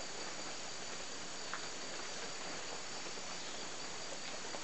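Steady background chorus of crickets, an unbroken high-pitched trill with a few faint clicks.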